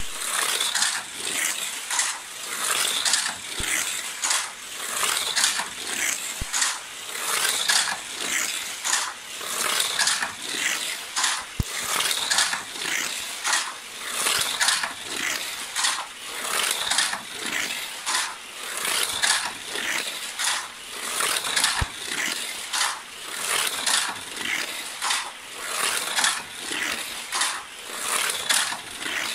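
Matchbox Scorpions battery-powered toy car lapping a plastic track: a small electric motor whirring and the car clattering along the track. The rattle swells and fades in a regular cycle as the car circles, coming close and moving away again.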